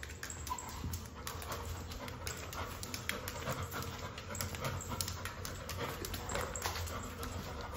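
Labrador panting steadily at close range, with many short sharp clicks over it.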